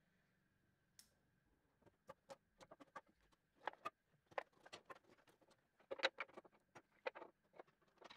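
Faint, irregular clicks and light knocks of clamps and timber being handled during a glue-up, beginning about two seconds in.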